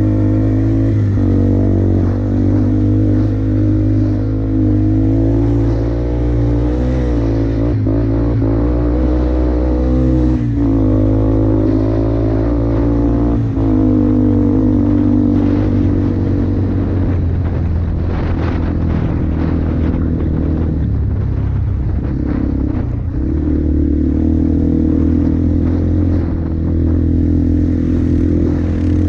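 2004 Yamaha Bear Tracker ATV's single-cylinder four-stroke engine running through an aftermarket FMF exhaust while riding, its pitch rising and falling with the throttle. A run of rattles and knocks comes through about two-thirds of the way in.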